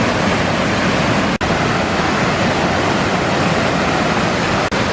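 Steady, loud rush of flowing water, cutting out for an instant twice, about a second and a half in and near the end.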